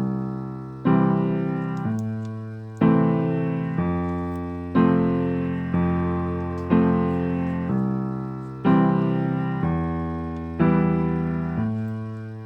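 Background piano music: slow chords struck about every two seconds, each one fading away before the next.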